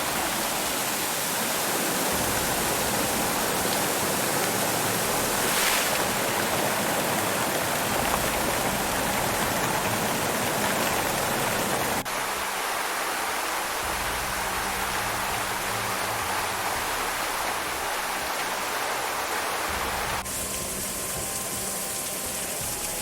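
Rushing floodwater: a steady, dense noise of fast-flowing water that changes character abruptly about twelve and twenty seconds in, as the footage cuts from one stretch of water to another.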